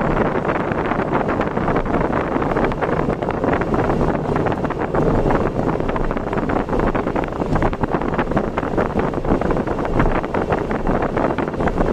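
Wind rushing and buffeting on the microphone of a vehicle travelling at road speed, over steady road and engine noise.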